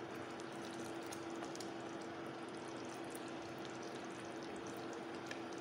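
Tomato and pepper sauce with sardines simmering in a stainless steel pot, a steady bubbling hiss with faint pops, over a steady low hum.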